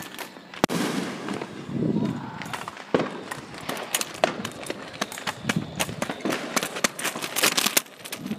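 Neighborhood fireworks and firecrackers going off: scattered sharp bangs and pops, the loudest just over half a second in, with a dense run of rapid crackling pops in the last couple of seconds.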